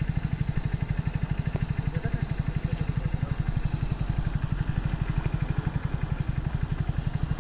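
Mahindra Thar 4×4's engine idling: a steady low throb with fast, even pulses.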